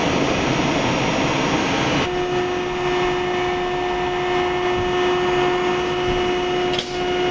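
Budd-built R32 subway car running through the tunnel: a steady rumble of wheels on rail. About two seconds in, a steady hum comes in and holds to the end.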